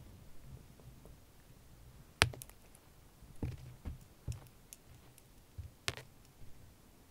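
Scattered light clicks and soft taps as a cat bats at a dangling string toy, with a sharper click about two seconds in and another near six seconds.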